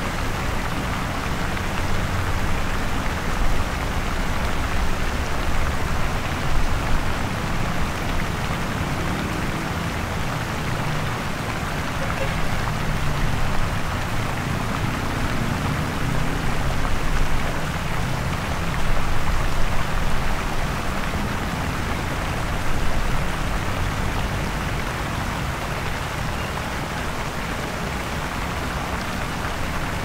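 Busy city street traffic: a continuous wash of road noise over a deep engine rumble, swelling briefly several times as heavier vehicles pass.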